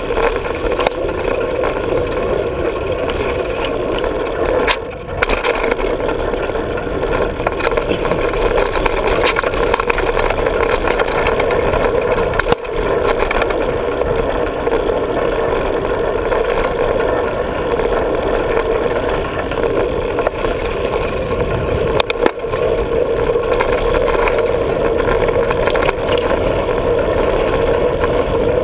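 Steady rushing noise of a Diamondback hardtail 29er mountain bike running fast downhill on a dirt trail: tyres on dirt and wind on the camera's microphone. A few sharp knocks from bumps come about five, twelve and twenty-two seconds in.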